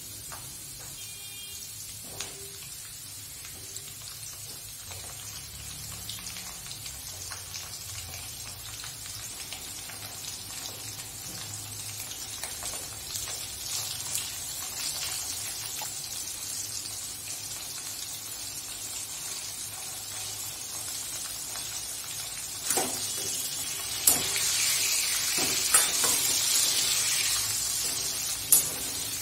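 Drumstick pieces and potato wedges sizzling in oil in a kadai, the sizzle growing louder. Near the end, a metal spatula knocks and scrapes against the pan a few times as the vegetables are stirred.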